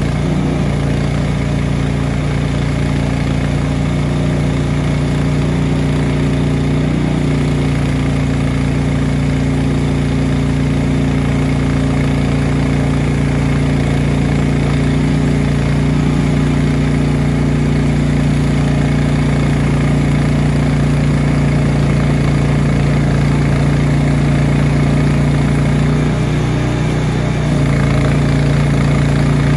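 Frontier OS23 sawmill's engine running steadily. Its note changes briefly near the end, then runs a little louder.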